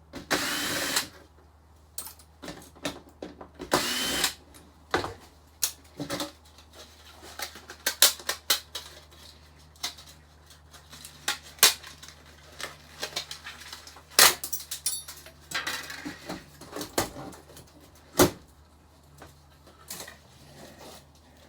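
Power screwdriver whirring in two short bursts as screws are driven out of a flat-screen TV's circuit board, followed by many small sharp clicks and knocks of screws and metal parts being handled.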